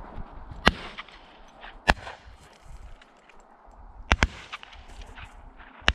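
Shotgun shots from a Beretta: two sharp reports about a second apart, then a quick pair of cracks near the middle and one more near the end.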